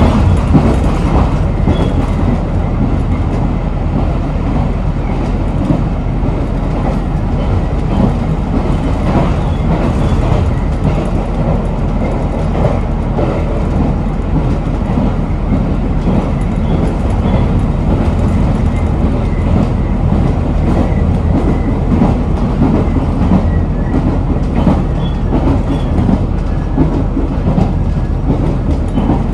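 Running noise heard from inside a JR East GV-E400 diesel-electric railcar travelling at speed: a loud, steady rumble of the wheels on the rails, heaviest in the low end.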